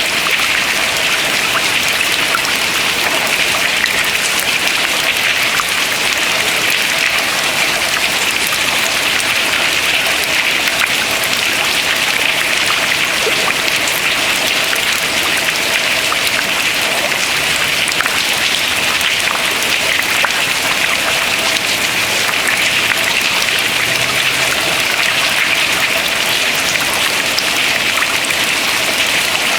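Water dripping from ice into the river below: a dense, steady patter of many small drips.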